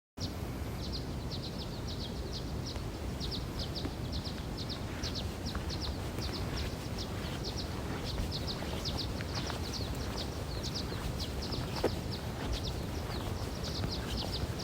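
Outdoor nature ambience that starts suddenly: many rapid, high-pitched chirps from birds or insects repeat throughout over a low, steady rumble.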